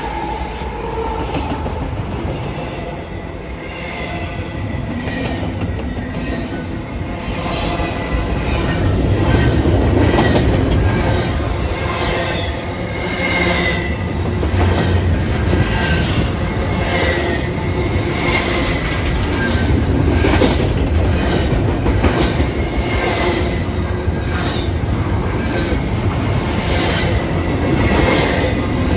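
A train rolling past close by, its wheels clacking at a steady rhythm over the rail joints, with short high wheel squeals. It gets louder about eight seconds in.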